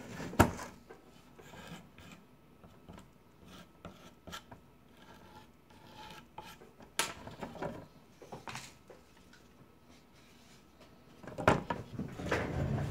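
Light scratching and scraping of a pointed hand tool working grout out of the joints of a glass mosaic, with short clicks. Near the end come louder rubbing and knocks as the wooden-framed piece is shifted and turned on a plastic turntable.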